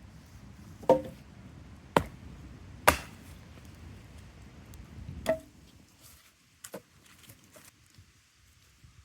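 Firewood being chopped for a campfire: four sharp chopping strikes about a second apart, a couple of them with a brief ring, then a lighter knock. A steady rushing background drops away about six seconds in.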